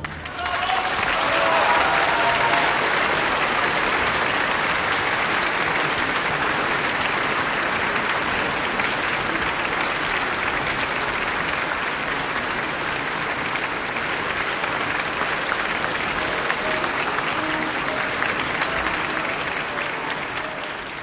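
Large audience applauding in a concert hall, swelling within the first second to a steady level and dying away near the end.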